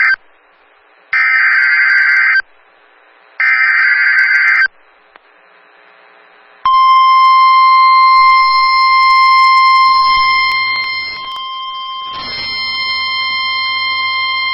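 Emergency alert signal from a NOAA Weather Radio broadcast. First come the warbling digital header bursts of the alert code: the end of one, then two more, each about a second long with a second's gap between them. Then the steady 1050 Hz weather radio warning tone sounds for about eight seconds, announcing a severe thunderstorm watch.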